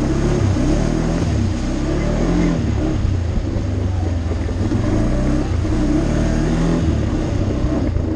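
ATV engine running under changing throttle, its pitch rising and falling as the machine works along the trail.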